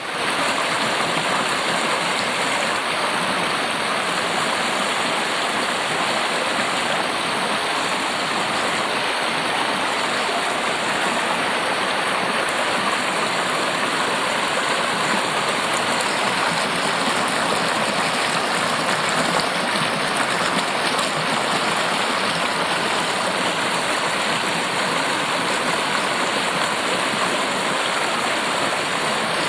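Waterfall cascades: a steady, even rush of falling water that does not change.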